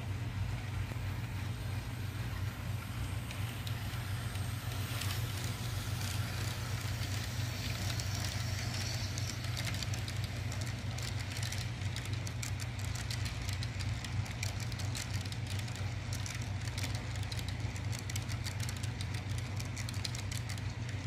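Frateschi HO-scale model train running past: a steady low hum under rapid clicking of the wagons' metal wheels over the track, with the clicking growing denser about halfway through.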